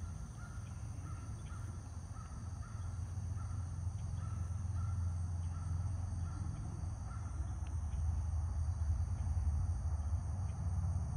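Low wind rumble on the microphone, with a faint, short high call repeating about twice a second.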